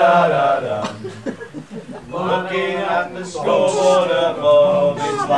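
A group of men singing together without accompaniment, holding long notes; the singing begins about two seconds in, after a short burst of voices.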